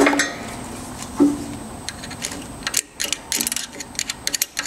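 Metal-on-metal clinks and ticks from a drill press pushing a socket down on an LS1 valve spring retainer to compress the spring. Two ringing clinks come first, about a second apart, then a quick run of small ticks in the second half.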